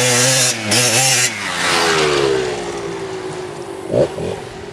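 Kawasaki KDX 200 two-stroke dirt bike engine at full throttle on a hill climb, its pitch bending up and down, then gliding lower and fading as the bike gets further away. A short loud burst of sound comes about four seconds in.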